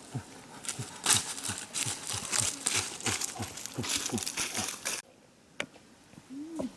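Loud crackling, crinkling rustle over a string of short, low, falling calls or grunts, about two to three a second; the sound cuts off abruptly about five seconds in.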